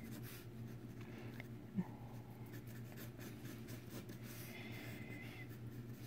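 Wooden graphite pencil sketching lightly on paper: faint, soft scratching strokes, with one short tap a little under two seconds in.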